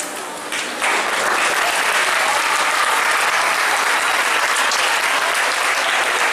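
Audience applauding, breaking out suddenly about a second in as the song's music dies away, then steady.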